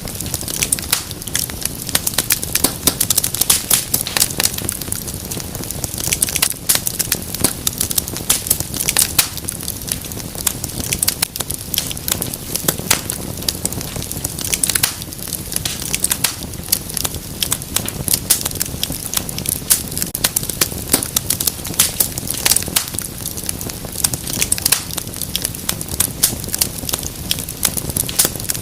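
Wood fire in a fireplace crackling, with dense, irregular sharp pops and snaps over a steady low rush of flame.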